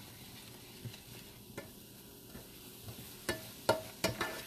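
Mushrooms sizzling in a frying pan as they are stirred with a utensil. About three seconds in, the utensil knocks and scrapes against the pan several times in quick succession, working the browned bits off the bottom.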